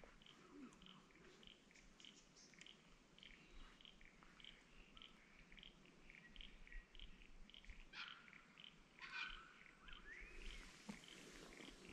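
Faint bush ambience: a short, high pip repeats about twice a second throughout, with a few bird chirps about two thirds of the way in and a rising whistle near the end.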